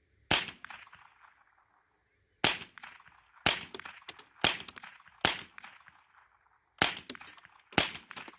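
Seven .22 LR rifle shots, fired one at a time about a second apart, from a Mossberg 715T semi-automatic rifle. After the first shot a struck steel gong target rings on for a couple of seconds.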